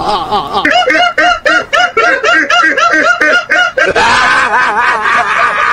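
High-pitched rhythmic laughter, quick 'ha-ha-ha' at about four a second, giving way about four seconds in to a longer, wavering high squealing laugh.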